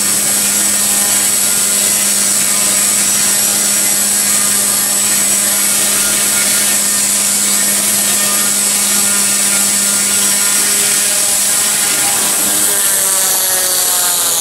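Align T-REX 150X mini electric RC helicopter in flight: a steady rotor hum with a high electric motor whine. Near the end the pitch falls as it lands and the rotor spools down.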